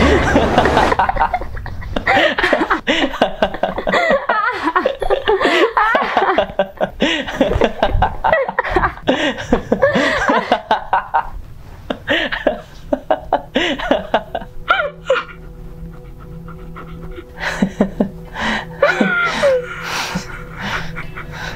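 A man laughing hard in long runs of quick, repeated bursts, dying down after about eleven seconds, with a shorter bout of laughter near the end.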